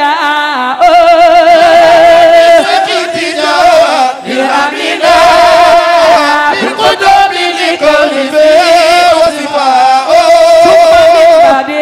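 Voices singing an Arabic Sufi devotional chant in long held notes with wavering ornaments, with short breaks between phrases about 4 and 7 seconds in.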